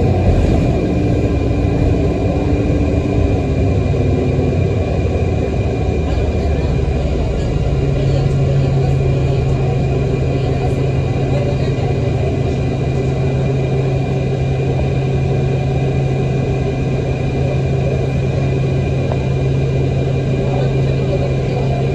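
City transit bus's diesel engine and road noise heard from inside the passenger cabin while the bus is under way: a steady low drone. About seven seconds in, a strong steady hum settles in.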